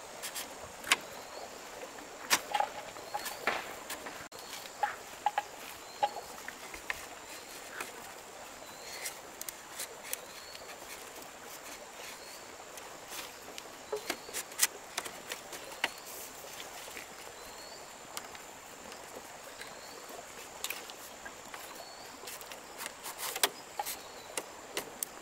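Forest ambience: a short rising chirp repeating every second or so over a steady high-pitched insect hum, with scattered sharp clicks and knocks.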